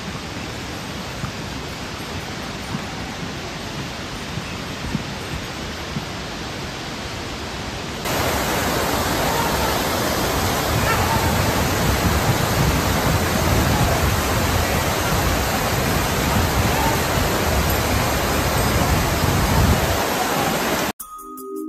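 Steady rushing of a mountain river, an even roar of water that gets louder after a cut about eight seconds in. It cuts off abruptly near the end as music begins.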